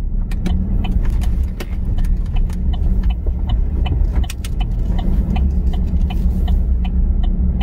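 Pickup truck heard from inside the cab while driving: a steady low engine and road rumble, with many light clicks and rattles scattered through it.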